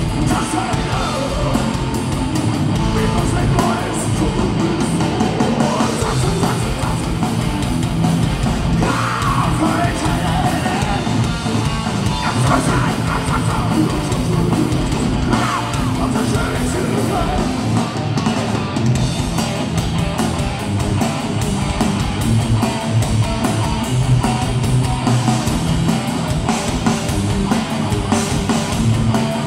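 Thrash metal band playing live: distorted electric guitars and drums with a yelled, shouted vocal over them.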